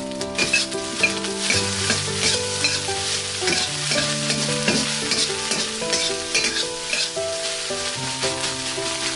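Egg fried rice being stir-fried in a hot wok: a steady sizzle with repeated scrapes and tosses of the spatula against the pan. Soft background music with held notes runs underneath.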